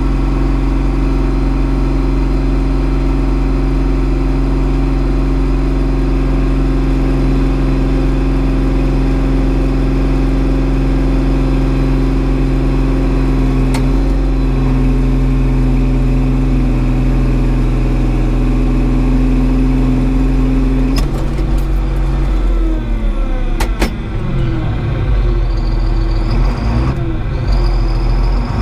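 Stock-class pulling tractor's diesel engine running hard at a steady pitch as it drags the sled. About three-quarters of the way through, the engine note falls away, with a few sharp clicks as the pull winds down.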